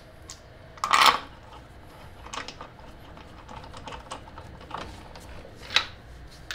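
Steel lug bolts clinking and clicking as they are threaded by hand into the wheel hub, with the metal wheel hanger pin being handled. A few scattered sharp clicks, the loudest about a second in.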